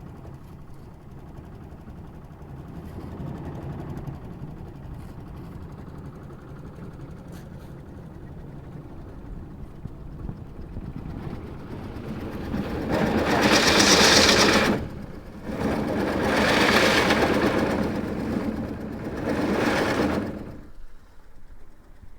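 A motor running steadily with a low rumble, then three loud rushing surges of noise lasting a few seconds each in the second half.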